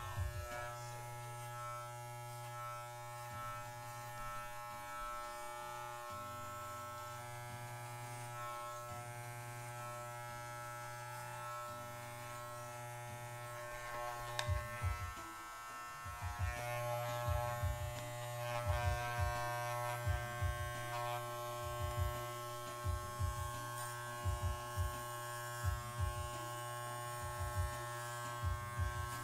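Corded electric dog clippers running with a steady buzz while trimming a miniature schnauzer's coat. From about halfway through, a string of short low thumps joins the buzz.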